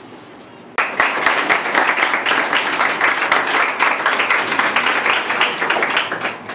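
A roomful of schoolchildren applauding, the clapping starting suddenly about a second in and tailing off near the end.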